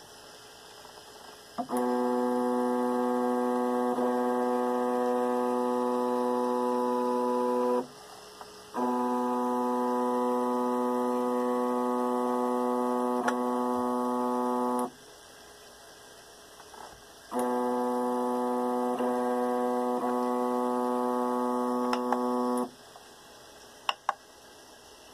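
Stepper motor moving the Y axis of a homemade RAMPS/Marlin 3D printer: a steady single-pitched whine while it moves, three moves of about six seconds each with short pauses between. A couple of sharp clicks near the end.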